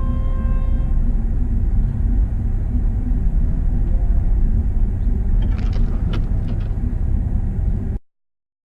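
Steady low rumble of a vehicle driving on a rough road, with a few short clicks or rattles a little past halfway; the sound cuts off suddenly near the end.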